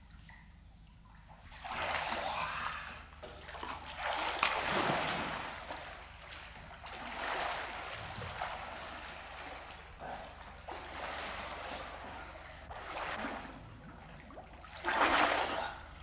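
A swimmer splashing through the water of a swimming pool, the water surging and sloshing with each stroke every two to three seconds, the loudest splash near the end.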